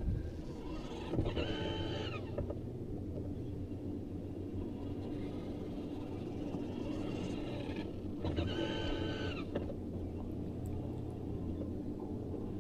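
Electric trolling motor on a fishing boat humming steadily. Twice, about a second in and again about eight seconds in, a higher motor whine lasting about a second sweeps in and then drops away.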